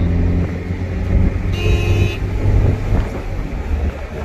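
Car interior while driving: a steady low rumble of engine and road noise. About a second and a half in comes a brief horn toot lasting under a second.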